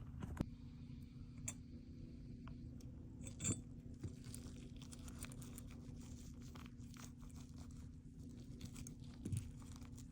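Faint handling noises: scattered small clicks and rustles over a steady low hum, with a slightly louder click about three and a half seconds in.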